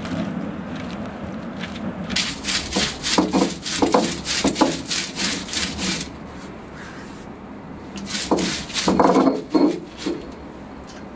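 Stone roller rubbed back and forth on a flat grinding stone (ammikallu), crushing grated coconut: a rhythmic scraping of stone on stone at about three strokes a second, in two bouts, the first about two seconds in and the second about eight seconds in.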